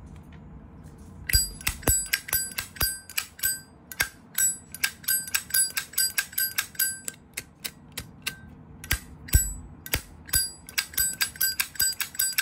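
Zippo lighter's lid flicked open and snapped shut over and over, a fast, irregular run of ringing metallic clinks starting about a second in: a demonstration of the lighter's clink, the sound a sturdy Zippo in good condition is judged by.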